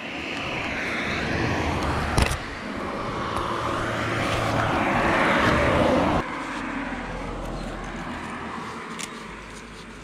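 A motor vehicle passing on the road: a steady rushing noise that swells and then cuts off abruptly about six seconds in, leaving a quieter background. A single sharp click comes a couple of seconds in.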